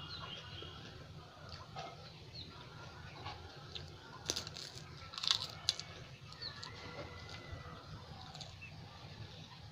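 Close-miked mouth sounds of eating pani puri: chewing, with a few sharp crisp crunches about four to six seconds in. Short high chirps come and go throughout.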